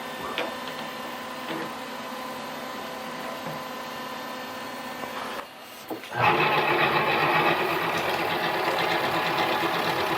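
Mini lathe running with a steady motor whine. It drops away briefly about five and a half seconds in, then comes back louder and rougher.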